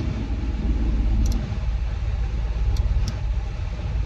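Steady low rumble of a running vehicle, with three faint clicks: one about a second in and two close together near the end.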